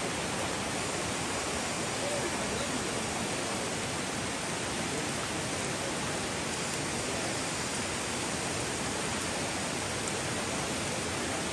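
Steady rushing of a fast-flowing muddy river, with rain falling on the water.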